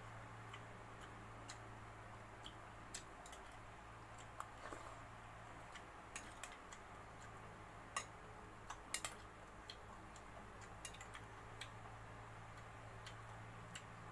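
Metal spoon clicking and scraping against a glass bowl during eating, as scattered light clinks, with a few louder ones about eight and nine seconds in.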